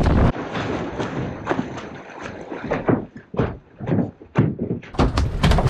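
A gummy shark on a gaff hauled over the side of a small boat: a run of irregular thumps and knocks as the fish and the wooden gaff hit the hull, coming thicker and heavier near the end.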